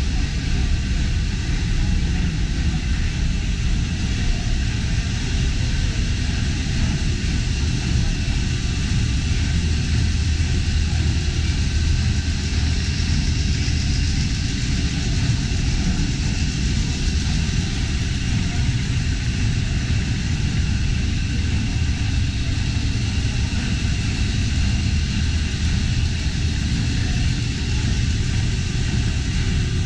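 Steady machinery din inside a Liberty ship's engine room while underway: the triple-expansion steam engine and its auxiliary pumps running together, with a strong low rumble under an even clatter and hiss.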